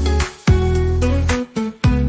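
Music: an instrumental passage of a pop song with deep bass notes and a beat, without singing.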